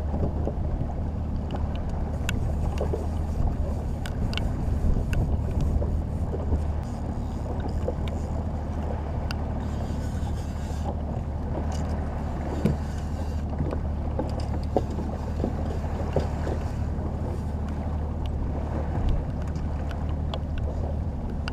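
A small fishing boat's motor running steadily with a low hum, under wind and water noise, with scattered small clicks and knocks of rod and gear handling.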